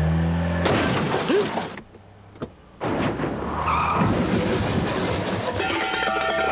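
Car engine revving up, then a loud burst of noise under a second in and a short hush. About three seconds in comes a loud crash and clatter as the car runs into garage shelving.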